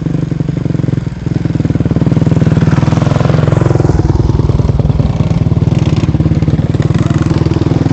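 Small single-cylinder engines of a children's dirt bike and mini bike running as the bikes ride up close, getting louder about two seconds in.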